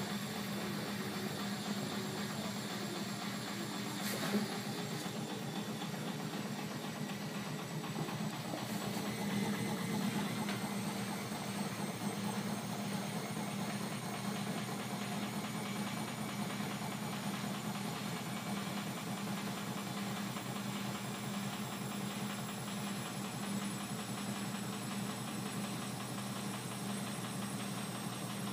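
Bosch Maxx 40 front-loading washing machine running, a steady hum with a high motor whine that rises slowly in pitch.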